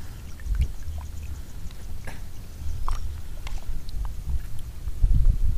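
Water sloshing and lapping around a wading angler's body, heard as uneven low rumbles that swell about half a second in and again near the end, with a few faint clicks in between.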